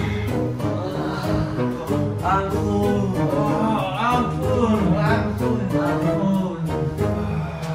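Background music with singing over a steady bass line.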